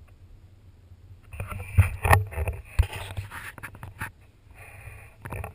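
Handling noise on a GoPro: a run of sharp knocks, scraping and rustling as the camera on its stick bumps and rubs against things, with the loudest knocks about two seconds in and a softer rustle near the end.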